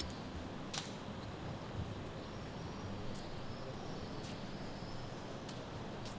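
Quiet outdoor tennis-court ambience between points: a steady low background hiss with a few faint, sharp knocks scattered through it.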